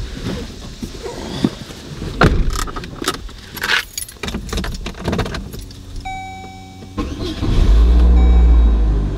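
Keys on a lanyard jangling and rattling while a driver settles into a car seat, then a short dashboard chime. About seven seconds in, the car's engine starts, and its steady low running is the loudest sound.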